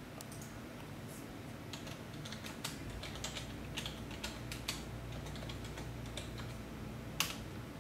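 Typing on a computer keyboard: irregular key clicks, with one sharper, louder click near the end.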